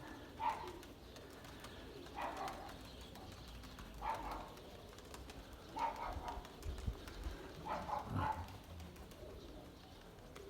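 Domestic pigeons cooing, a short call repeated about every two seconds.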